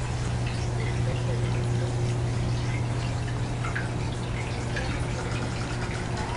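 Indoor room tone: a steady low hum with faint scattered ticks and clicks.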